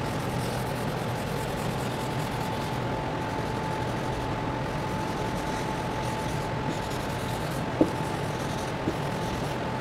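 Chalkboard eraser rubbing across the board in repeated strokes, over a steady background hiss with a faint steady high tone. There is a short knock about three-quarters of the way through.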